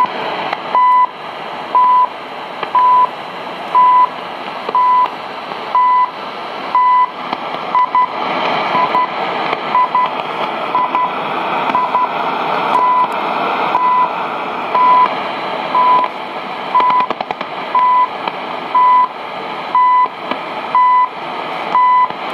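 CHU Canada's shortwave time signal on 7850 kHz, heard through a world band radio: a short beep about 1 kHz in pitch once every second over steady static that swells and fades. Around a third of the way in, a few of the beeps come as short double ticks.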